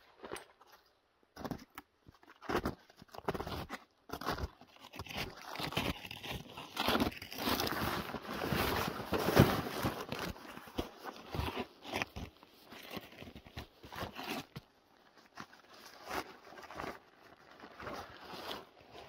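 Irregular rustling, scraping and crunching of nylon fabric and packed gear, loudest about halfway through, as gear is rummaged in a pulk bag and the Aluxe Minipeak XL hot tent is pulled out in its stuff sack.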